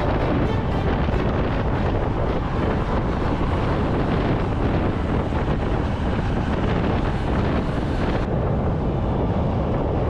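Wind rushing and buffeting over the microphone: a steady, heavy rumbling noise, typical of an action camera on a moving bicycle.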